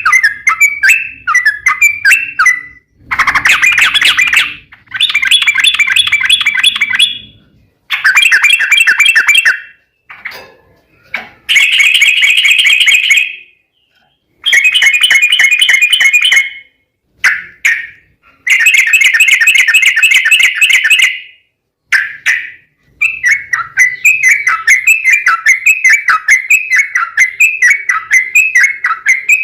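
Yellow-vented bulbul (trucukan) singing. It gives quick repeated chattering notes at the start, then long rapid trills in blocks of about two to three seconds, each starting and stopping sharply with short gaps between. From about two-thirds in, it returns to a steady run of quick repeated notes.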